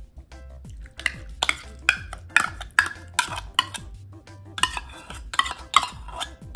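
A metal spoon scraping and knocking inside a small tin can while scooping out chopped green chiles, about two strokes a second, with a short pause about four seconds in.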